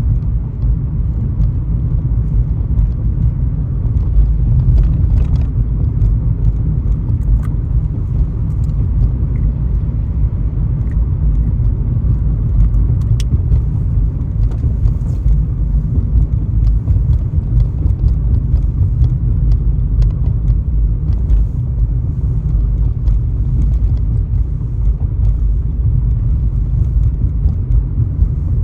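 A car driving: steady low rumble of road and engine noise with no change in pace.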